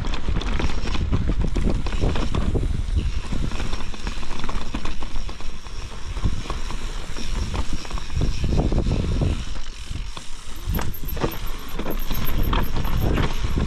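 Mountain bike riding along a dirt trail: tyres running over the ground with a steady rumble and frequent clattering knocks as the bike rattles over bumps.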